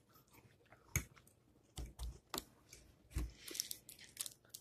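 Faint scattered taps and knocks with a little crinkly rustling, from hands handling things close to the phone's microphone.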